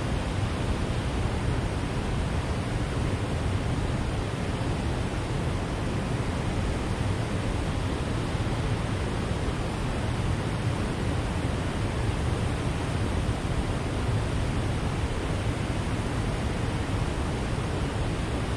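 Water rushing through the dam: a steady, even noise, heaviest at the low end.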